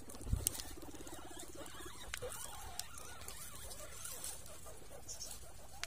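Guinea pigs scuffling and rustling in their pen, with scattered small clicks. A soft thump comes near the start, followed by a low, rapidly pulsing call lasting about a second and a half.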